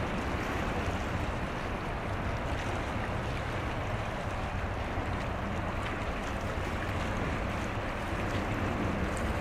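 A small general cargo ship under way: a steady low rumble with a hiss of water and wind over it.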